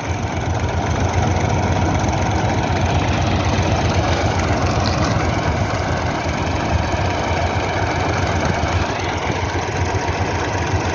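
Massey Ferguson 385 tractor's diesel engine running steadily under load, driving a PTO-powered straw chopper that chops wheat straw and blows it through its spout: a loud, even mechanical drone.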